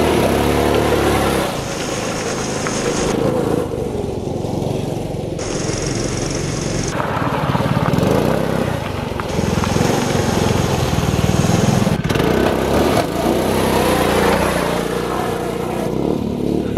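Small gas go-kart engine in a swapped Power Wheels Mustang, revving and running under load, its pitch rising and falling repeatedly as the throttle is worked.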